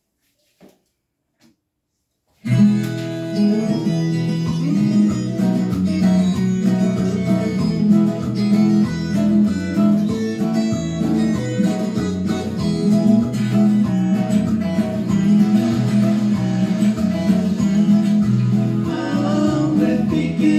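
Instrumental introduction of a country-style song led by plucked strings, starting abruptly about two and a half seconds in after near silence.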